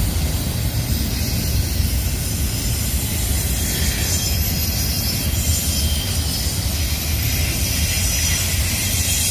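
Double-stack container train's well cars rolling past at steady speed: a continuous low rumble of steel wheels on rail.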